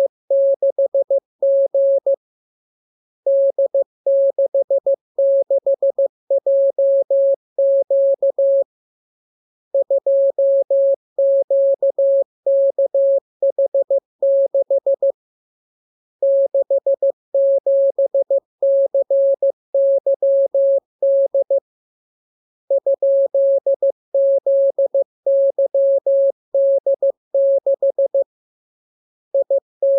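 Morse code (CW) practice signal: a single clean mid-pitched beep keyed into dots and dashes at a steady speed. It comes in runs of several seconds, with a pause of about a second between runs, as character groups sent for copying by ear.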